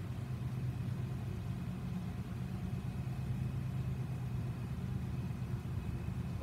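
Diesel locomotive of an approaching CP grain train, led by an ES44AC, heard as a steady low engine rumble while the train is still out of sight.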